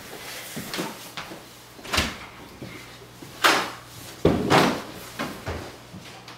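A series of sharp household knocks and clunks, the loudest about three and a half and four and a half seconds in, over a low steady hum.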